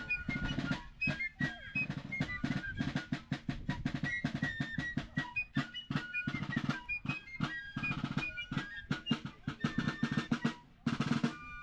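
Music: rapid snare-drum rolls and drum beats under a high melody that moves from note to note.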